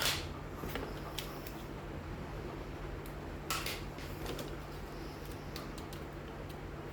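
Small toy pieces and packaging being handled: scattered light clicks and rustles, a stronger one just after the start and another about three and a half seconds in, over a steady low hum.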